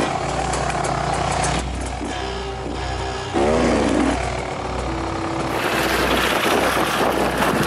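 Enduro dirt bike engines running and revving, one rev rising and falling about three and a half seconds in, with music playing underneath. The sound changes abruptly a few times.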